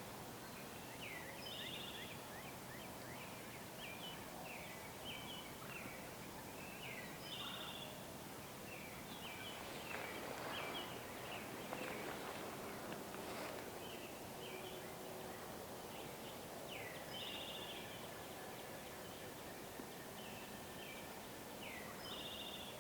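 Songbirds singing outdoors: short chirped phrases and a repeated buzzy trill, coming every few seconds over a steady background hiss.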